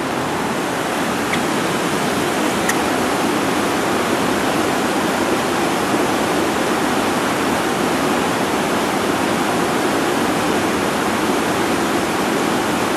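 Steady, unbroken rush of water: heavy rain falling together with a fast-running creek.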